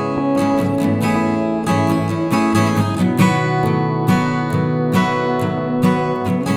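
Background music: acoustic guitar strummed and plucked with a steady rhythm.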